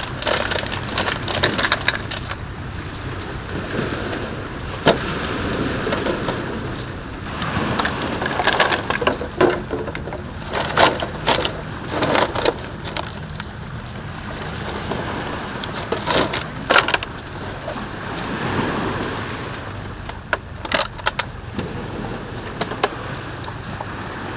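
Plastic bottles and a large plastic rubbish bag crinkling and crackling as litter is picked out by hand from among pebbles and dry twigs and stuffed into the bag, in irregular sharp crackles.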